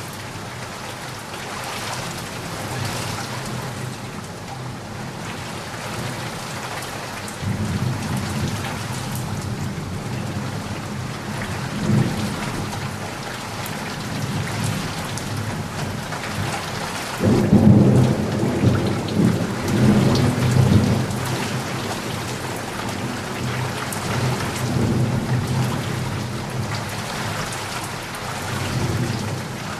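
Steady rain with thunder rumbling low beneath it, the rumbles building from about seven seconds in and loudest around the middle of the stretch.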